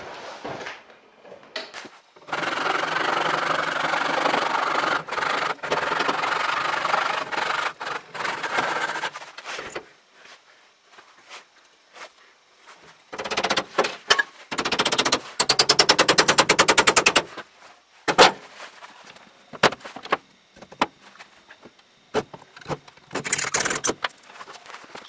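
Workshop noises: a steady machine noise for about seven seconds, then scattered knocks and a very fast run of sharp taps lasting a couple of seconds, with more knocks and a short burst of noise near the end.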